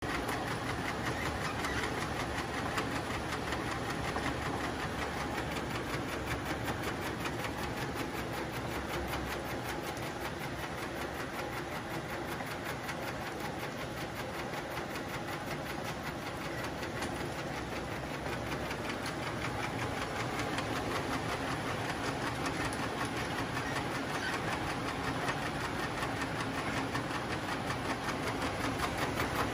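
Alliance accumulation conveyor table running: its blue modular plastic belt clatters over the table in a fast, even rattle, with its side-mounted drive motor running underneath.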